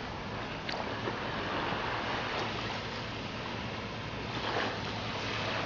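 Sea waves washing, a steady rush that swells and eases a couple of times.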